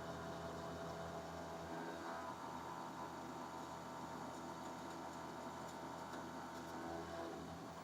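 Faint, steady electric hum from a CNC bed mill running, made up of several steady tones whose pitches shift about two seconds in and again near the end, as the motor speeds change.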